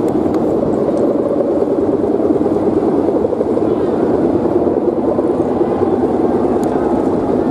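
Steady droning hum of many kite hummers (sendaren bows strung on the kites) buzzing in the wind, several pitches wavering together.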